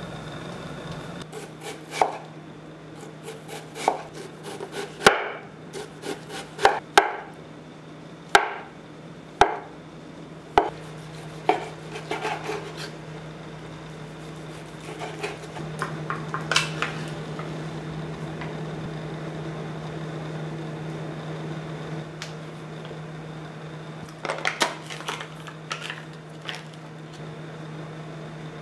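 Chef's knife chopping on a wooden cutting board, dicing bacon: irregular sharp knocks in bunches, over a steady low hum.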